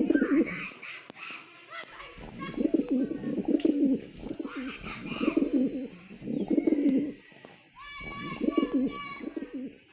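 Pigeons cooing, with low coos repeated every second or so and higher-pitched chirps mixed in.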